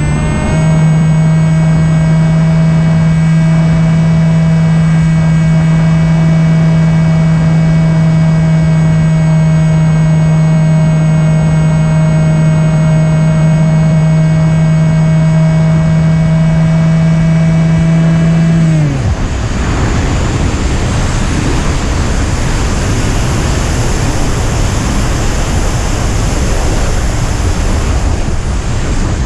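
Electric motor and propeller of an Opterra RC flying wing running at steady throttle, a constant pitched hum, heard from the camera on board. About two-thirds of the way through the motor cuts off abruptly and only wind rushing past the airframe is left as it glides.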